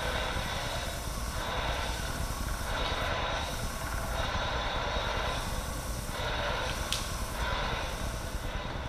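Leather buffing machine running, a steady hiss from the abrasive roller that swells and drops in a regular rhythm, about once a second, as a skin is pushed through to buff the flesh side even.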